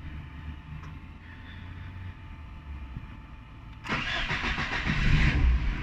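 Lada 2114's four-cylinder petrol engine being started: about four seconds in the starter cranks briefly and the engine catches almost at once, then keeps running.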